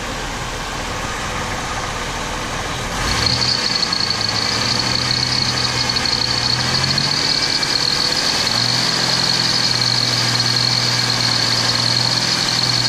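Ford Taurus engine with a knocking bottom end, idling and then revved up about three seconds in and held at high revs, up toward 4,000 rpm, with a high whine. It is being run to check whether a Lucas oil stabilizer has cured its rod knock.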